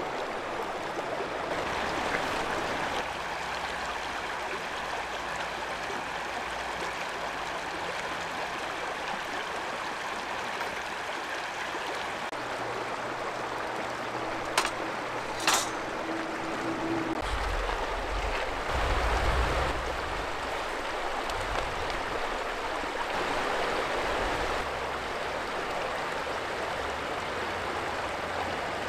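Steady rushing of a stream flowing over rocks. About halfway through there are two sharp clicks about a second apart, and shortly after them a low rumble.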